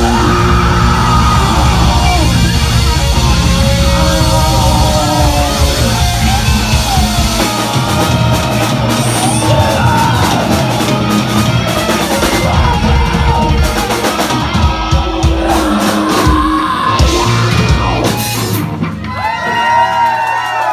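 Live rock band playing loud: electric guitar and bass over a drum kit, with some yelled vocals. About nineteen seconds in, the drums and low end drop out and the guitars ring on with long held notes.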